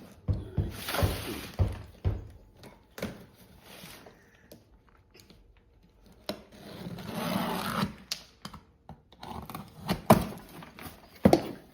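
Cardboard box and packaging being handled and opened: a series of thunks and knocks with scraping and rustling. The knocks cluster in the first few seconds and again near the end, with a stretch of rustling between.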